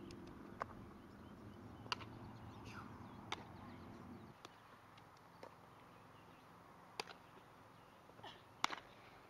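A few sharp pops of a softball smacking into leather gloves during infield fielding and throwing, the loudest near the end, over a faint low background hum that drops away partway through.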